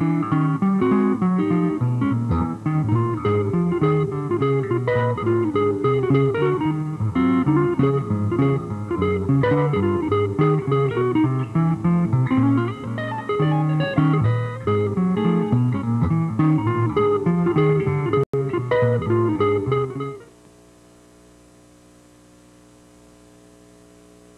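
Instrumental music with guitar and bass, with no singing. It stops abruptly about 20 seconds in and leaves only a faint, steady low hum.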